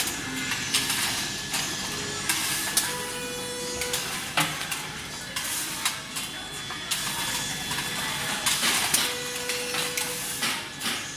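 Semi-automatic can body resistance seam welder running, with a hiss and a steady tone that comes in for about a second at a time, twice. Over it, repeated sharp metallic clacks of tinplate can bodies being fed along the machine and set down.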